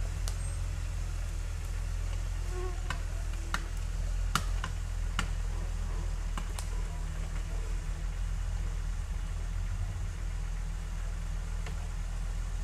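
Jeep engine running at low revs as it crawls over the edge of a steep trail obstacle, a steady low rumble. Several sharp cracks and snaps come between about three and seven seconds in.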